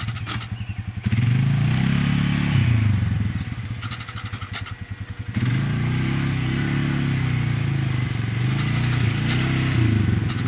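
Polaris ATV's single-cylinder four-stroke engine, bored out from 425 to 500 cc, revving up and easing off as the quad rides a trail. It drops to a slow, pulsing chug right at the start and again from about four to five seconds in, revving up after each.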